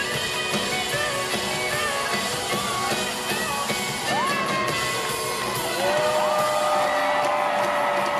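Live country-rock band playing an instrumental passage led by electric guitar, with whoops and yells from the audience.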